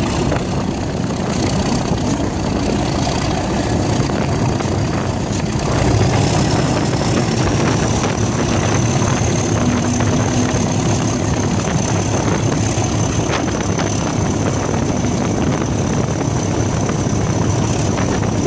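Class 37 diesel locomotive's English Electric 12CSVT V12 engine working under power as the train runs, heard close up from the cab side. A high turbocharger whistle rises in pitch about six to eight seconds in and then holds steady over the engine's rumble.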